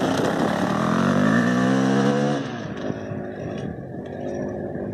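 Dirt bike engine revving as the bike pulls away: the note climbs for a second or two, then drops suddenly and carries on quieter as the bike rides off into the distance.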